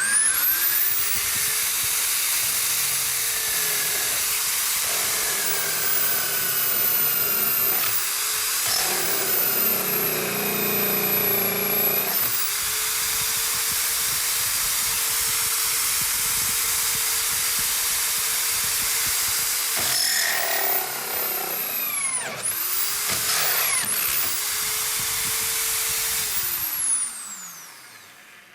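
Electric drill motor running under load with a loud hiss. Its speed dips and comes back up several times, and it runs down to a stop near the end.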